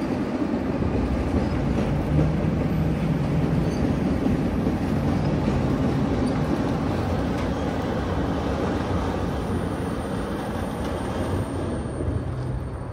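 Union Pacific passenger cars rolling over a timber trestle, a steady rumble of steel wheels on rail. It eases a little near the end as the last car passes.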